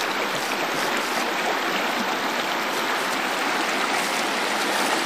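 Creek water rushing steadily over rocks and shallow riffles.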